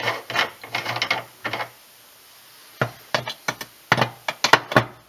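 Metal reloading die being removed from a reloading press: a quick run of rattling metallic clicks, a short pause, then a series of sharp clicks and knocks as the die and its parts are handled.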